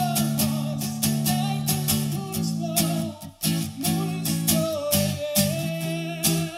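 Acoustic guitar strummed steadily while a man sings long held notes over it; the strumming breaks off briefly about halfway.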